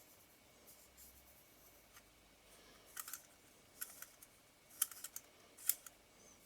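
Faint, scattered small clicks and light ticks of small metal lens parts being handled and fitted, about half a dozen in the second half.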